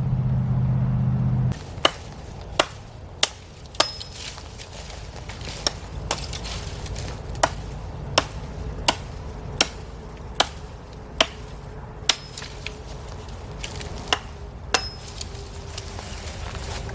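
A series of sharp strikes with a hand tool on wood, about one every three-quarters of a second with a few short pauses, some with a brief ringing note. A steady low rumble fills the first second and a half.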